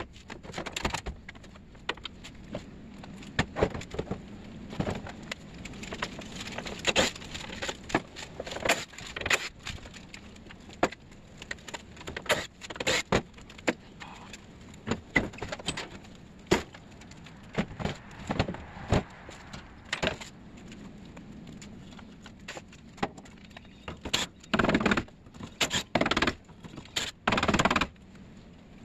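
Irregular metallic clanks, knocks and scrapes of scrap air-conditioner parts being handled and taken apart by hand, with a few longer harsh bursts in the last few seconds.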